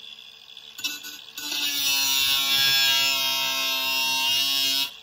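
Milwaukee angle grinder grinding steel exhaust pipe: it cuts out at the start, gives a short blip about a second in, then is switched on again. Its motor whine rises as it spins up and runs steadily with a loud hiss of grinding for about three and a half seconds, then stops abruptly near the end.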